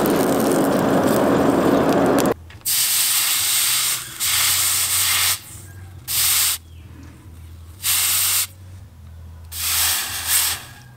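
A charcoal forge rushes steadily with a low hum and cuts off after about two seconds. Then a hot steel knife blade is quenched in a water trough and sizzles in about five separate hisses as it is dipped again and again.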